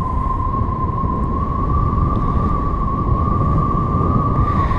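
Paragliding variometer sounding a single steady tone, not climb beeps, as the tandem glider fails to climb; the pitch edges slightly upward and cuts off near the end. Wind rushes on the microphone underneath.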